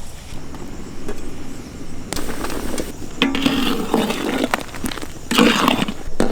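Cooking being done by hand at a pot: a few sharp knocks, with a pair near the end, and bouts of scraping and rustling as green chillies and other ingredients are handled.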